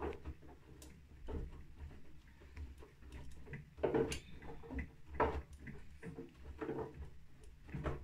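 Bosch front-loading washing machine in its wash cycle: the drum turns with a low steady motor hum while wet laundry tumbles and sloshes, giving a soft swish or thud about once a second.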